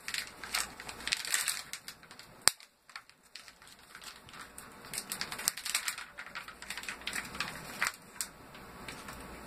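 Plastic bag of soft-plastic fishing worms crinkling and rustling as it is pulled open by hand, with one sharp click about two and a half seconds in.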